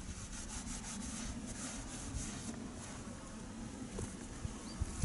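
Scratchy rubbing and rustling, densest in the first two and a half seconds, over a steady low rumble.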